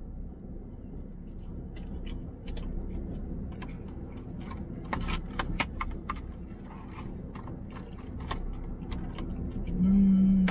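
Chewing on a bite of sushi, with scattered small clicks from the mouth and the plastic takeout tray, over a steady low hum in a car cabin. Near the end, a loud hummed "mmm" about a second long.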